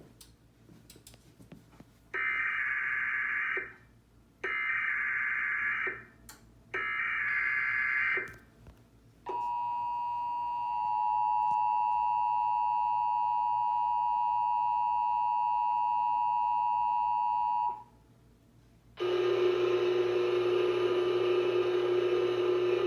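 Emergency Alert System Required Monthly Test: three short bursts of SAME header data tones, a screeching warble each about a second and a half long, then the steady two-tone EAS attention signal for about eight seconds. About a second after the attention signal stops, a steady buzzing sound of several tones begins.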